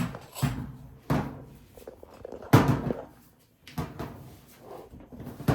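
A handful of separate knocks and thuds of household things being moved about and set down while a surface is cleared, the loudest about two and a half seconds in.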